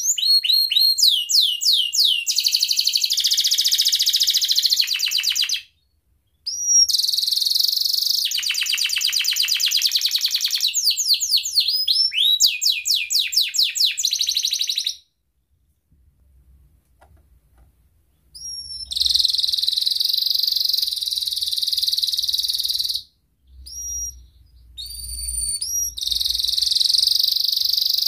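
Domestic canary singing long phrases of fast rolling trills and quick rising whistles. The song breaks briefly about six seconds in and goes quiet for about three seconds midway, then resumes.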